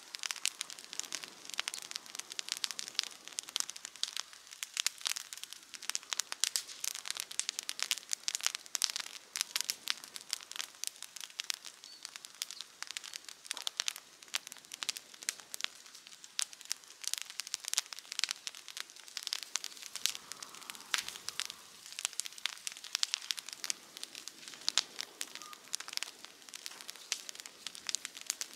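Wood campfire crackling, with a dense, irregular run of sharp snaps and pops.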